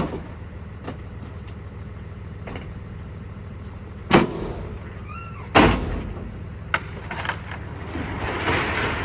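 Delivery truck engine idling steadily, with two loud bangs about four and five and a half seconds in, a few lighter clicks, and a rush of noise building near the end.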